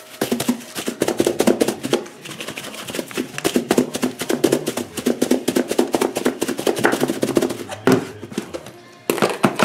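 Lidded plastic food container shaken hard, a boneless pork chop and dry breading mix rattling and knocking inside it in many quick strokes a second as the chop is coated. Near the end the shaking stops and the container knocks a couple of times as it is set down on the counter.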